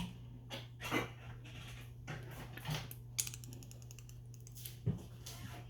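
Scattered light clicks and taps of plastic slime-making supplies being handled as glue goes in, about six spread out, over a steady low hum.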